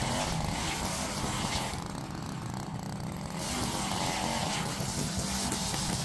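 Small petrol engine of lawn-care equipment running steadily under load, with the high hiss dropping away briefly about two seconds in.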